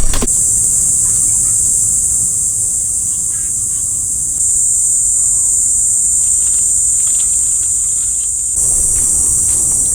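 Loud, steady high-pitched insect chorus buzzing in the trees, stepping up in level about four seconds in and again near the end. There is a sharp knock right at the start.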